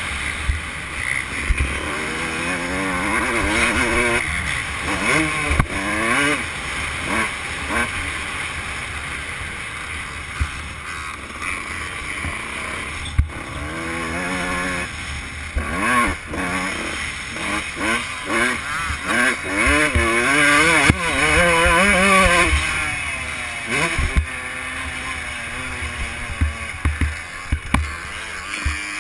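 Dirt bike engine, heard from on board, revving up and falling back again and again as the rider throttles on and off around the motocross track. Occasional sharp knocks come through as the bike crosses bumps.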